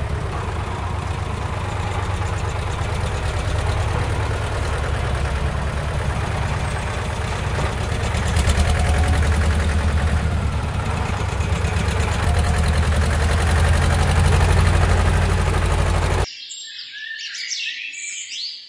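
An engine running steadily with a rapid, even chugging, cutting off abruptly about sixteen seconds in. Birds chirping follow near the end.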